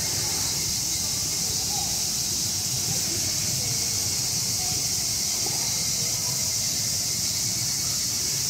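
Steady high-pitched drone of cicadas in summer trees, unchanging throughout, over a low steady rumble from a freight train of container wagons passing in the distance.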